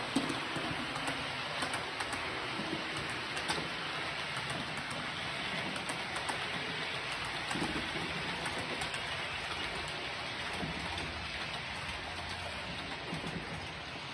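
Model train running on the layout: a Roco Re 4/4 locomotive and its express coaches make a steady rattling hiss of small metal wheels on rail, with occasional faint clicks over the track joints.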